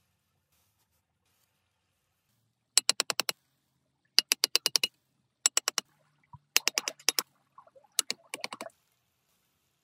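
Rapid sharp clicking, about a dozen clicks a second, in six short runs of up to half a second each, beginning about three seconds in.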